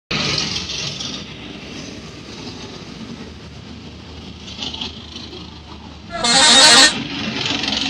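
A telolet-style multi-tone musical horn sounds one short, loud blast about six seconds in, over steady vehicle and outdoor noise.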